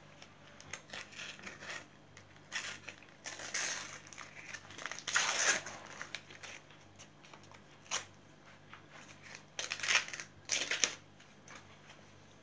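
Plastic sticker packet being torn open and its wrapper crinkled as the stickers are pulled out: several short rustling, tearing bursts, the loudest about five seconds in and again around ten seconds.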